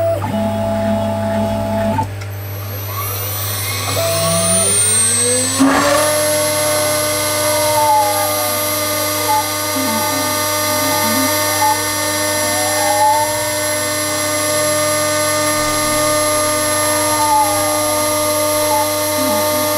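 Small homemade CNC engraving machine milling brass: the spindle spins up with a rising whine about four seconds in, then runs steady while the end mill cuts a circle in the brass plate. Over it, a higher motor whine sweeps up and down in pitch every few seconds as the head traces the curve.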